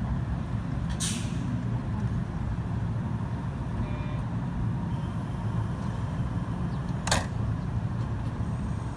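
Electric train rumbling steadily at the station, with two short sharp hisses of air, one about a second in and one near the end.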